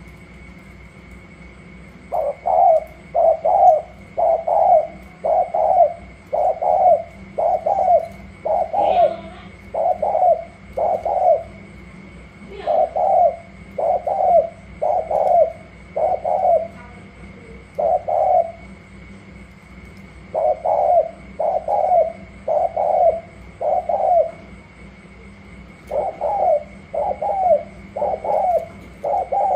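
Spotted doves cooing in repeated short phrases of two or three notes each, starting about two seconds in and continuing in bouts with brief gaps. This is the competitive cooing of male doves set against each other in a calling contest. A faint steady high tone runs underneath.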